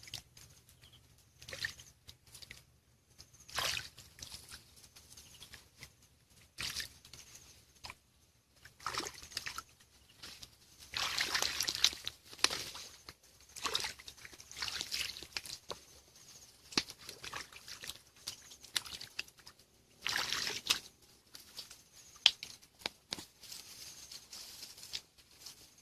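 Hands sloshing and splashing in shallow muddy water in irregular bursts, the longest about eleven seconds in and another about twenty seconds in.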